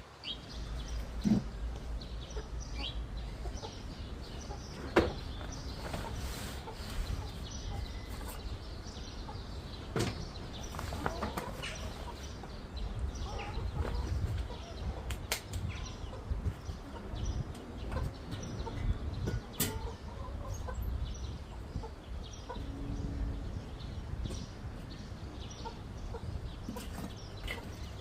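Backyard chickens clucking now and then over a steady low rumble, with a few sharp knocks scattered through.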